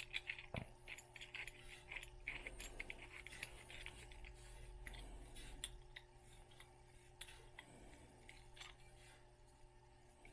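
12-gauge hand roll crimp tool being turned on a shotshell hull, giving faint, irregular small clicks and scraping as the hull's mouth is rolled over; the clicking thins out in the second half.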